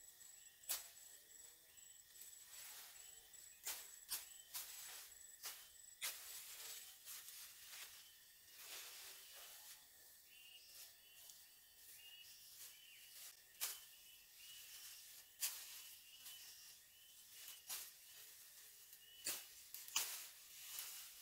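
Faint, steady insect chirping, over about a dozen sharp snaps and rustles of grass and stems being pulled and broken by hand.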